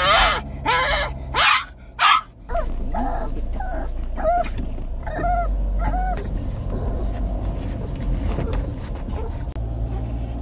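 A 17-year-old Shih Tzu barking inside a car: a few loud barks in the first couple of seconds, then five or six shorter, weaker yelps. A steady low car rumble runs underneath and carries on alone for the last few seconds.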